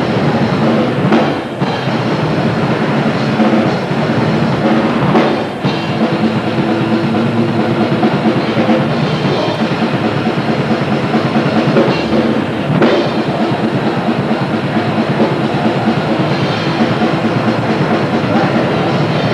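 Grindcore band playing live: loud, dense distorted music driven by a pounding drum kit, with brief dips about a second and a half, five and a half, and thirteen seconds in.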